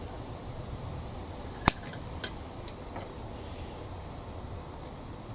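A sharp click about a second and a half in, then a few fainter ticks, as small plastic kit parts and tools are handled, over a steady low background hum.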